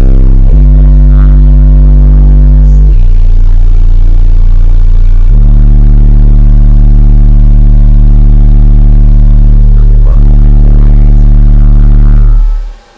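Digital Designs 1508 Supercharged 8-inch subwoofer playing a bass track very loud, the cone driven hard: long held deep bass notes that change pitch a few times, cutting off near the end.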